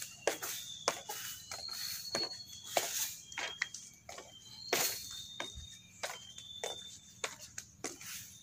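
Footsteps on the wooden planks of a boardwalk, a steady walking pace of about one and a half steps a second. Over them are short, high whistled bird notes at several slightly different pitches, repeated again and again.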